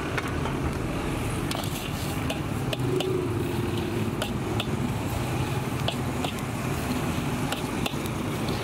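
Hot roasting sand scraping and rasping against a wide metal pan as a flat metal scraper sweeps sand and peanuts into a perforated sieve pan, sifting the roasted peanuts out of the sand. Scattered light clicks of the tool and nuts on the metal sound over a steady low rumble.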